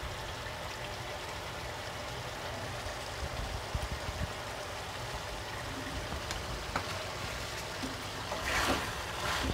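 Chicken pieces simmering in their own juices in a pan on a gas stove, a steady hiss, with a few faint clicks and some louder scraping near the end.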